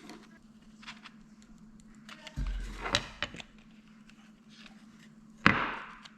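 Handling noise from prising the dust cap off a car speaker cone with a scalpel: scattered small clicks, a longer scraping rustle about two and a half seconds in, and a sharp knock about five and a half seconds in, over a steady low hum.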